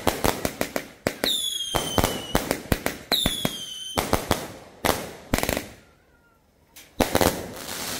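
Fireworks cake firing shot after shot in quick succession, each a sharp bang, with two falling whistles about a second long, around one and three seconds in. After a short lull near six seconds, another bang about seven seconds in is followed by crackling.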